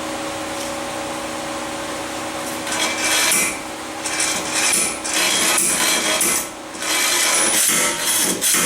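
Metal tools scraping and banging on a seized rear wheel bearing hub as it is worked loose, in loud rough stretches of about a second each that start about three seconds in, after a steady hum.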